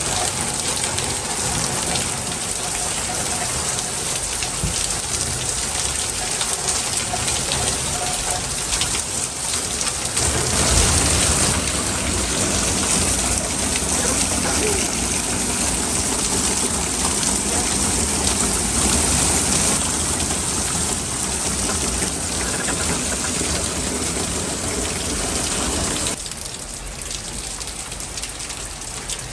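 Steady hiss of rain falling, a little louder from about ten seconds in and dropping near the end.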